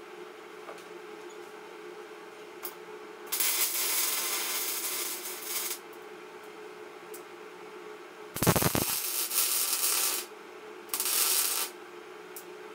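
Wire-feed (MIG) welder arc crackling in three bursts, a long one, a second one about two seconds long and a short one near the end, welding iron bars, over a steady hum.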